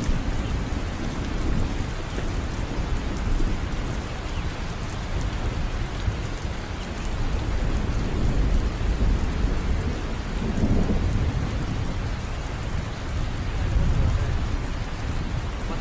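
Wind buffeting the microphone: a steady low rumble with a hiss over it, swelling and easing at times.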